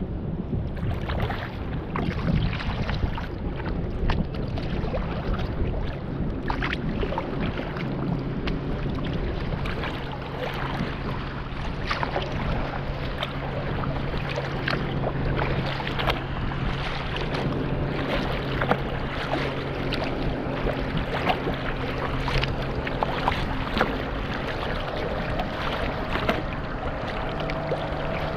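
Choppy lake water splashing and slapping against a sea kayak's hull as it moves through the waves, with wind buffeting the microphone.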